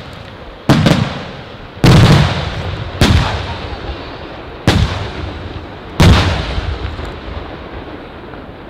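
Aerial firework shells bursting: five loud booms over about five seconds, each trailing off in echo, with the last echo dying away near the end.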